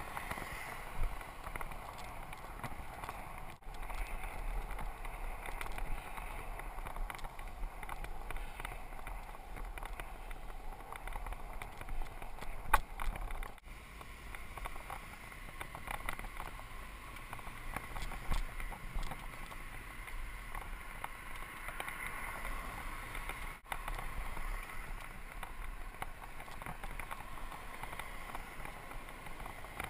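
Steady rush of wind and tyre noise picked up by a GoPro on a Mongoose mountain bike riding along a paved street, with small rattles and clicks from the bike. One sharper click comes about thirteen seconds in.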